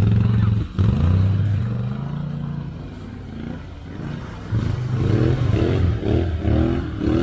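Can-Am Outlander 850 ATV's V-twin engine revving as the quad backs out of a rut: one rev about a second in, a quieter lull, then a string of short throttle blips from about halfway.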